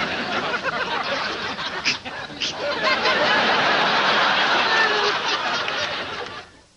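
Sitcom audience laughing: it builds to its loudest in the middle and dies away suddenly just before the end.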